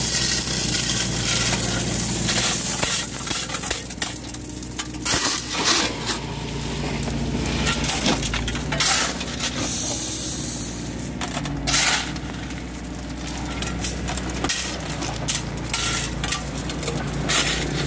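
Steel shovel scraping and scooping crushed stone on a heaped truck load, with irregular clattering of stones, over the steady running of the three-wheeled farm truck's small single-cylinder diesel engine.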